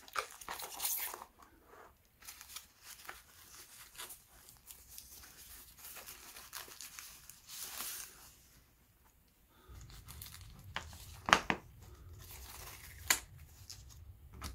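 Thin paper wrapping rustling and crinkling as it is peeled off a small machined aluminium gearbox part, with two sharp clicks in the last few seconds as the part is handled.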